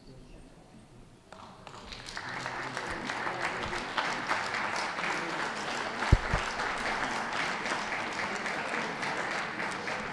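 Audience applauding, starting about a second and a half in and holding steady as a dense patter of clapping. There is a single low thump about six seconds in.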